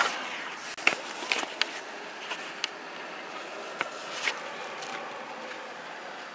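Camera handling noise: a handful of short knocks and rubs in the first few seconds as the camera is picked up and turned, over a steady hiss of outdoor air coming in through an open car window.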